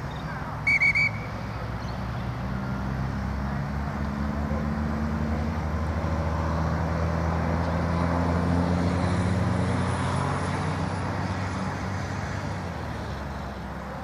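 Referee's pea whistle blown in one short, sharp blast about a second in. Then a vehicle engine's low hum slowly grows louder and fades away again, as from a vehicle passing by.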